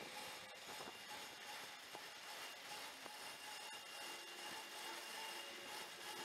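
Faint steady machinery hum with thin whining tones and a few light clicks, from the drive machinery of a railroad bascule bridge raising its leaf. A lower tone joins about four seconds in.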